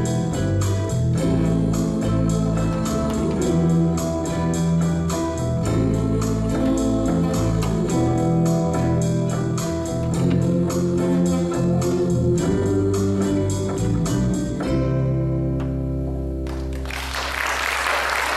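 Live band music with a steady drum beat, ending on a held final chord about fifteen seconds in, followed by audience applause near the end.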